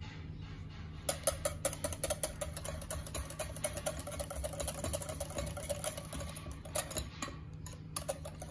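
Wire whisk beating thick fresh cream in a glass bowl: rapid strokes with the wires ticking against the glass. It starts about a second in, stops about seven seconds in, and gives a few more strokes near the end.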